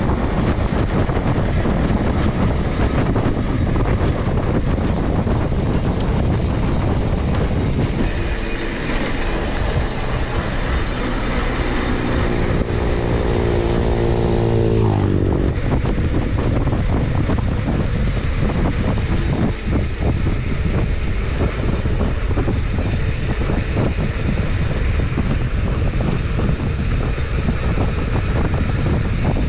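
Steady rush of wind on the microphone of a bicycle rider's helmet or chest camera while riding. For several seconds in the middle a droning, engine-like tone sounds over it, dipping in pitch just before it stops about halfway through.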